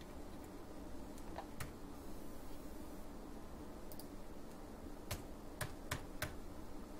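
Faint, sharp clicks of computer keys and a mouse as text is edited on screen: a couple about a second and a half in, then four in quick succession near the end, over a low steady room hum.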